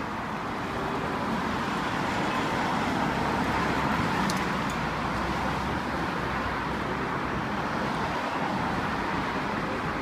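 City road traffic: cars driving past in a steady rush of tyre and engine noise that swells a little about three to four seconds in, then eases.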